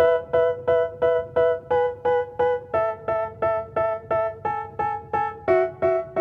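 Background music: a repeating electric piano figure of short, evenly spaced notes, about three a second.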